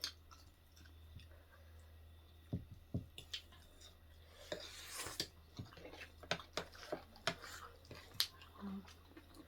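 Close-miked eating sounds: chewing, with scattered short clicks and taps of utensils or dishes and a brief noisy swell about five seconds in, over a steady low hum.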